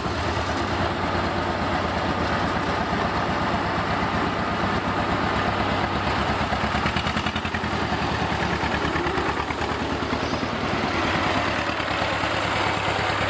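Small tractor engine running steadily at close range, a fast, even chugging as it moves off hauling a load of logs.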